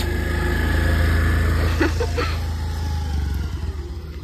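Honda Activa scooter's engine running close by, strongest for the first three seconds and then easing off.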